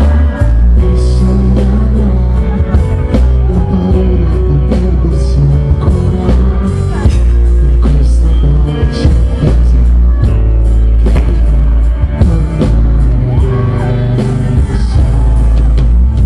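A live band plays through a PA. A male singer on a handheld microphone sings over electric guitar, keyboards and drums, with a heavy, booming bass.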